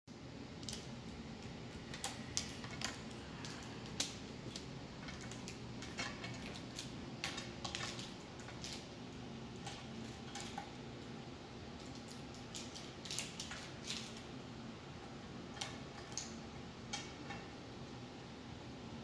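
Plastic highlighters clicking and clattering against each other and a glass tabletop as they are handled and packed into plastic bags, with irregular rustles of the bags, over a steady low room hum.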